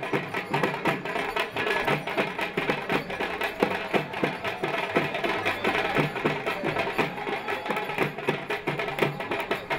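Festival drumming: a group of hand-held frame drums beaten together in a fast, steady rhythm.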